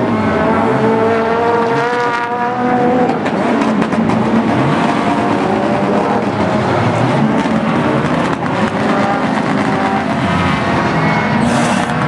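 Rallycross car engines revving hard at racing speed, rising in pitch over the first few seconds and then running on with shifting revs. A short hiss comes near the end.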